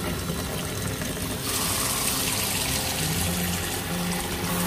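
Tap water pouring into a plastic yogurt tub, filling it; the rush of water grows fuller about a second and a half in.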